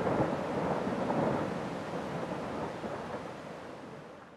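Kilauea's west-vent lava fountain: a steady, noisy rumble and rush of lava spattering up from the vent, fading out over the last couple of seconds.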